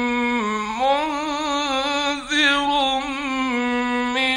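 A male Quran reciter chanting in the melodic mujawwad style, drawing the words out in long, wavering held notes, with a short break a little over two seconds in.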